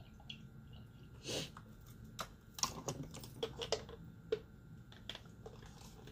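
Handling noise from a facial steamer being filled and fitted together: scattered light clicks and taps of plastic parts, with a short swish about a second in.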